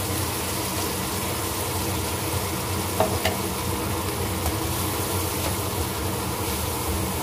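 Ground spice paste of shallot, garlic, red chilli and candlenut sizzling steadily as it fries in oil in a nonstick frying pan, with a couple of brief knocks about three seconds in. A wooden spatula stirs the paste near the end.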